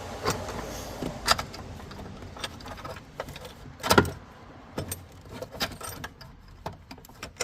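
Scattered clicks, taps and metallic clinks of tools and parts being handled while a battery-compartment component is levered up, with one louder knock about four seconds in.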